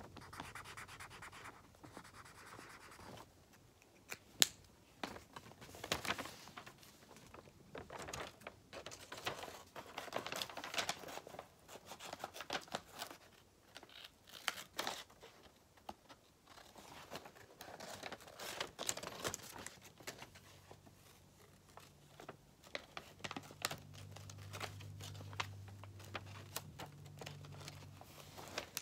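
Paper sheets rustling and crinkling as they are handled, with a marker scratching as it colours on the paper and scattered small clicks. A faint low hum joins in about twenty seconds in.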